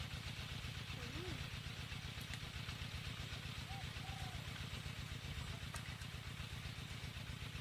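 A small engine running steadily with an even, rapid low thrum.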